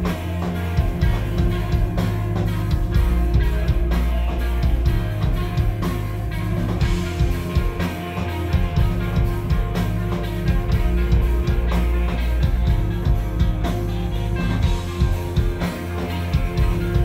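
Live instrumental rock band playing: electric guitars and electric bass over a drum kit, with a heavy, steady low end and regular drum hits.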